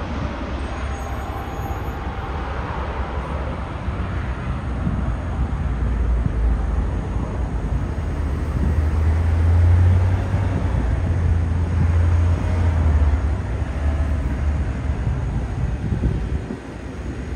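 A V-22 Osprey tiltrotor passing overhead: a steady low rotor drone that grows louder to a peak a little past halfway, then eases and drops away near the end.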